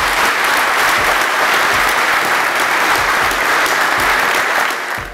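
Audience applauding, many hands clapping together in a dense patter that fades out near the end.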